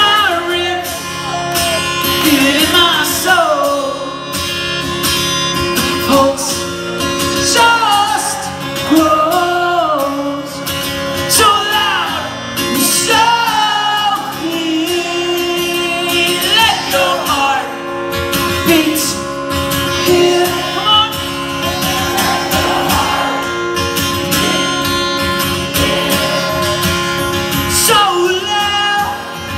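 A concert crowd singing along loudly with a solo guitarist-singer at a live show, many voices carrying the melody over the strummed guitar.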